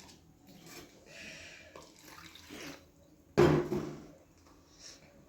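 Water being poured into a blender jar of herbs and spices, a faint, light splashing. A short loud burst about three and a half seconds in.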